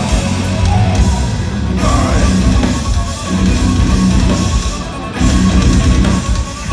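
Folk metal band playing live, heard loud from the audience: distorted electric guitars and drums, with short stop-start breaks in the music about two and five seconds in.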